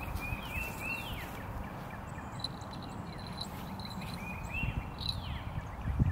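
Birds chirping in short repeated phrases over a steady low rumble, with a couple of low thumps near the end.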